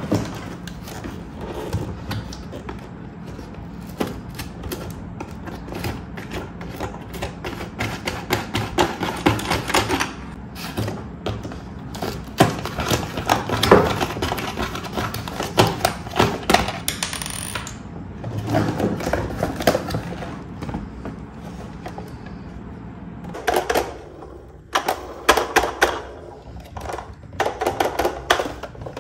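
Hard plastic toy track pieces clicking and clattering irregularly as they are handled. The clatter eases off for a few seconds about two thirds of the way through, then comes back in quick clusters near the end.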